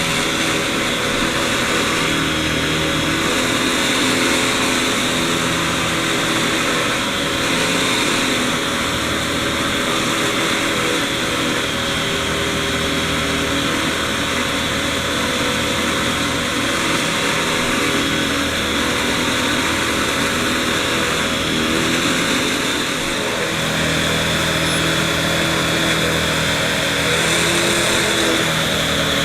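Vacuum cleaner running steadily, its motor keeping up a constant high whine under a loud rush of air, with lower tones that shift every second or two as it is pushed around.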